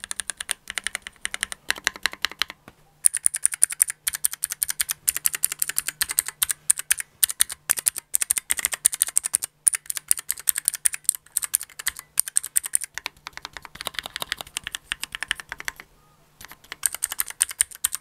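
Fast typing on a Keychron Q3 TKL mechanical keyboard fitted with blue clicky switches, put in without lubrication: a dense run of sharp clicks and clacks that breaks off briefly twice, about three seconds in and near the end.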